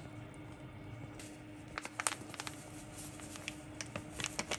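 Gloved hand rubbing spice onto whole fish in a glass baking dish: soft squishing with scattered light clicks and taps, clustered about two seconds in and again near the end, over a faint steady hum.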